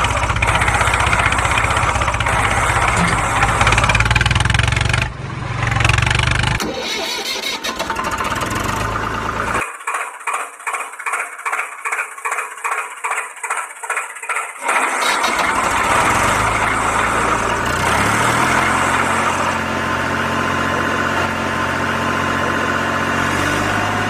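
Tractor engine sound effect laid over the pictures, in changing clips. A steady run gives way in the middle to a chugging pulse about three times a second, then the pitch rises as if revving and settles into a steady run.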